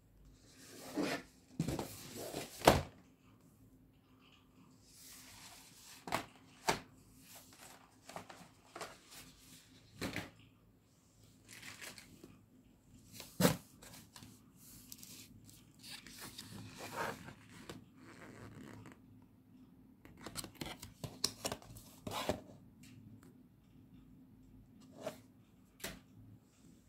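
Paper shopping bag and cardboard shoe box being handled: irregular paper rustling and crinkling broken by sharp taps and knocks, the loudest a little under 3 s in and about halfway through.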